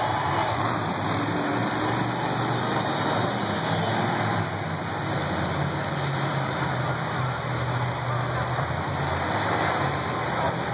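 Monster truck engines running steadily as the trucks drive slowly around a dirt arena.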